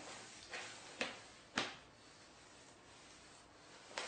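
Four short knocks or scuffs in about a second and a half, the last two the loudest, then quiet.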